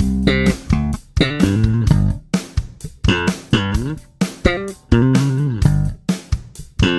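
Five-string Fodera electric bass guitar played solo in a slap style: a run of short, percussive thumbed and popped notes with sharp attacks, with a couple of sliding notes in the middle.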